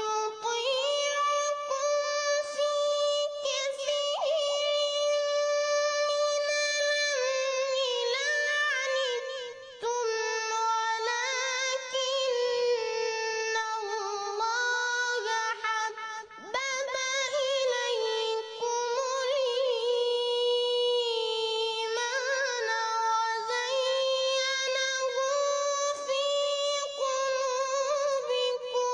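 A reciter's voice chanting the Quran in long melodic phrases, holding drawn-out notes with wavering ornaments, with short breaths about a third and a half of the way through.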